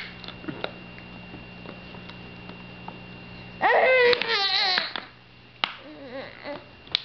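Baby growling at a plastic water bottle held to her mouth: a loud, wavering vocal sound a little past halfway, lasting over a second, then softer ones. Before it come light clicks of the plastic bottle being handled.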